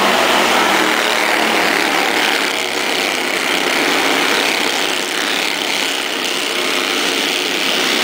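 A field of Bandolero race cars running at racing speed, their small engines making a loud, steady din as the pack passes close by.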